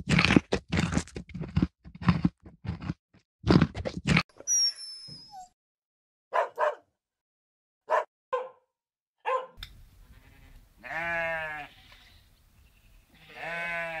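Yak cropping grass with a quick run of crunching tearing sounds, then a few short barks from a husky. After that come two long, quavering sheep bleats.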